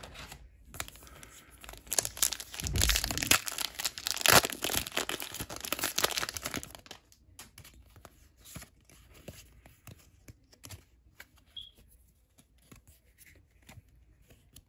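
A foil Pokémon booster pack wrapper being torn open and crinkled, loudest from about two to six seconds in, then softer scattered ticks as the cards are slid out and handled.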